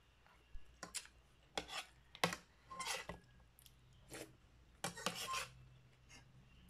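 Metal spoon and fork clinking and scraping against a ceramic plate while eating, about eight short clatters, a few of them ringing briefly.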